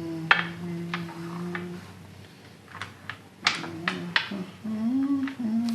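Mahjong tiles clicking sharply as they are set down and shuffled on the table, about a dozen clacks. A person hums a steady held note over the first two seconds and hums again near the end.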